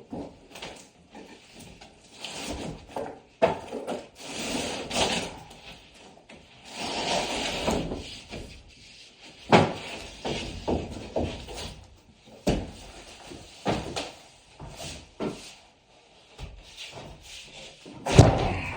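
Wood and building materials being handled: a run of irregular knocks and clatters with stretches of scraping and rubbing, the loudest knocks about halfway through and near the end.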